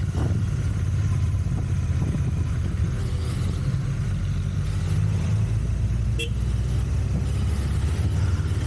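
Royal Enfield Continental GT 650's parallel-twin engine running steadily through its stock exhaust while riding.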